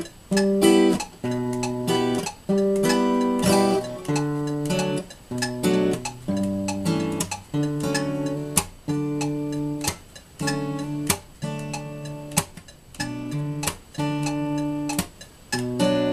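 Seagull S6 acoustic guitar playing a slow chord progression. Each chord rings briefly and is cut short, with sharp percussive clicks between the chords.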